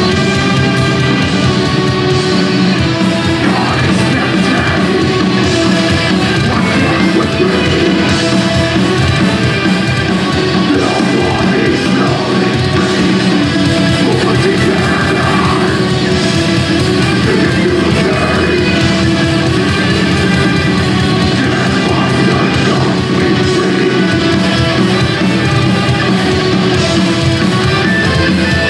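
Heavy metal band playing live: distorted electric guitars, bass and drums, with a singer's voice over the top in the middle stretch.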